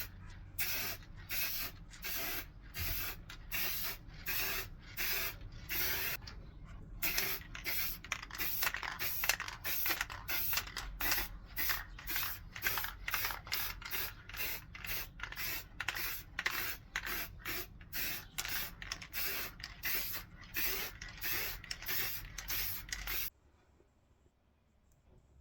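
Aerosol can of clear varnish spraying in short hissing bursts, about two a second, as the pieces get a gloss coat. There is a brief pause around six seconds in, and the spraying stops abruptly near the end.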